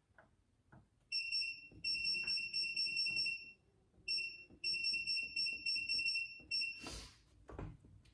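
Electronic beeping from a tire wheel balancer's control panel. A high-pitched beep tone sounds in rapid pulses, in two long runs separated by a short pause, and is followed by a couple of knocks near the end.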